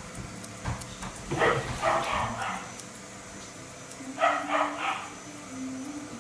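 A dog barking in two short runs of about three barks each, about a second in and again about four seconds in.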